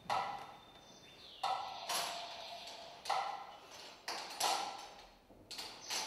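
A series of sudden struck or plucked sounds at uneven intervals, about eight in all, each ringing with a few clear tones and dying away within about half a second.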